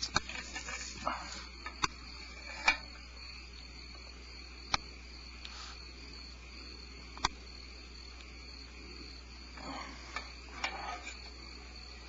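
Insects chirring steadily in a high, even drone, with a few sharp clicks scattered through and brief rustling near the start and near the end.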